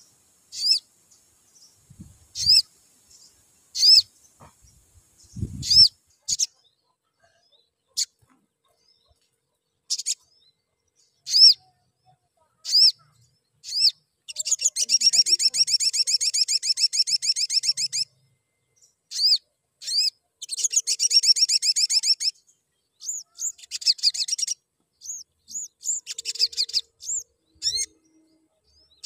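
Male olive-backed sunbird (sogok ontong) chirping: sharp high single chirps every second or two, then from about halfway long fast trills of chirps lasting a few seconds each.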